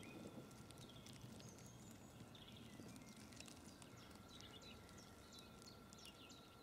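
Near silence with faint birds chirping now and then.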